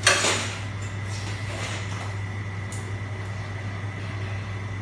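A person sitting down at a table on a chair, with a short loud rustle and scrape at the start and a few softer rustles after it. Under it runs a steady low hum.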